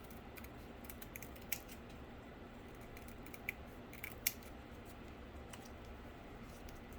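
Cardboard being cut and handled at a desk: a few sharp, scattered snips and clicks, the loudest about four seconds in.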